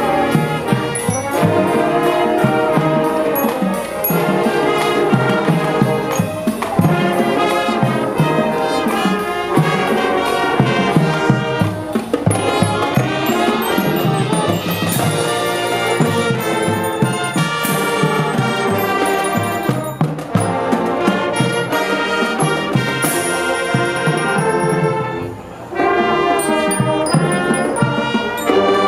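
Marching band playing: horns carrying the tune over a drumline of snare, tenor and bass drums with cymbals. The music breaks off briefly near the end, then the full band comes back in.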